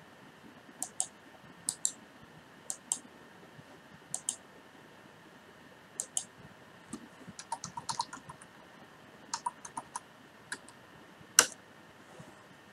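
Computer mouse and keyboard clicks: paired clicks about a second apart, then a quick run of keystrokes as an email address is typed, ending with one sharper, louder click near the end.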